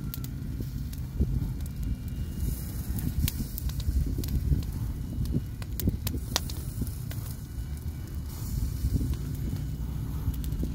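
Wood fire crackling in a fire pit, with scattered sharp pops, over a steady low rumble.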